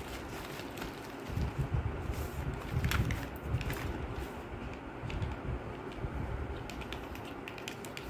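Packaging being handled during an unboxing: irregular low bumps and rubs against the microphone, with scattered light clicks and crinkles.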